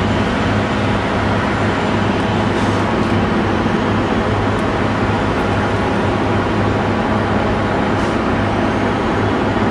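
Loud, steady drone of street traffic with a constant low hum.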